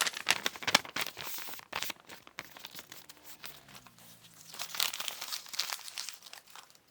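Crinkling, rustling noise made of many quick, irregular small crackles, louder in the first two seconds and again around five seconds in.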